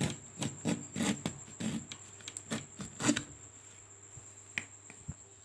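A small homemade wooden hand plane pushed in quick strokes across a wooden board, each pass a short rasping scrape as the blade lifts a shaving, about ten passes in three seconds. The strokes stop about three seconds in, followed by a couple of light knocks as the plane is handled.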